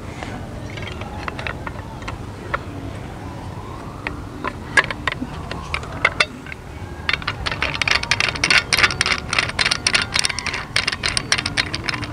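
Small plastic folding entrenching tool being unfolded and locked: a few scattered clicks and rattles, then, a little past halfway, a dense run of rapid ratcheting clicks as the handle's joint is twisted.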